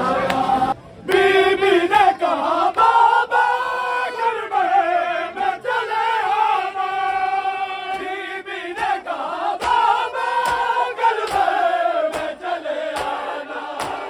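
Group of men chanting a noha (mourning lament) in unison, in long held, wavering notes. Irregular sharp knocks run through the chant.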